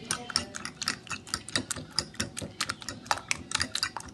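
Eggs being beaten in a ceramic bowl: a utensil clicks against the bowl's side over and over, several quick sharp clicks a second.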